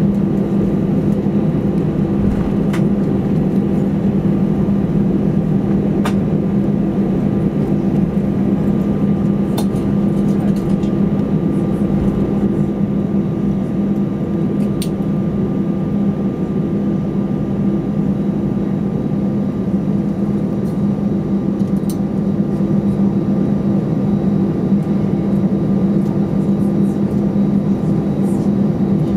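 Airbus A320 cabin noise while taxiing: the jet engines at idle give a steady hum with a low drone, with a few faint clicks.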